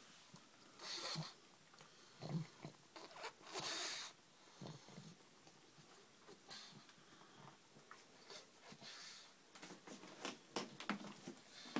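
Pug snorting and snuffling in irregular short bursts, the loudest a little under four seconds in, with rustling of the sheet it is settling under.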